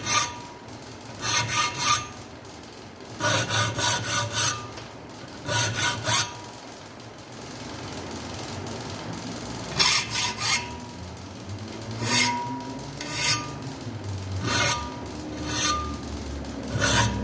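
A small hand file rasping on the steel spine of a knife clamped in a vise, cutting decorative filework. It comes in short runs of quick back-and-forth strokes with brief pauses between, and a longer lull about halfway through.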